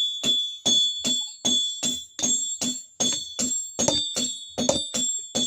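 Hammer blows on iron over an anvil, about three a second, each with a high metallic ring that carries between strikes: rolled iron being hammered straight.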